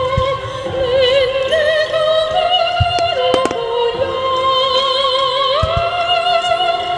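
Music for a fireworks show with an operatic voice singing long held notes with vibrato. A few sharp firework bangs cut in, three close together about three seconds in and another near six seconds.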